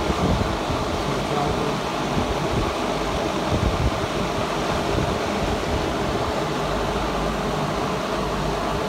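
Steady rushing air noise, like a fan running, with an irregular low rumble underneath.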